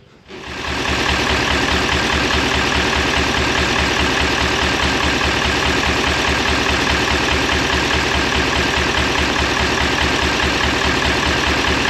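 MAN KAT truck's Deutz V8 diesel running at idle, coming in sharply within the first second and then holding a steady, even beat.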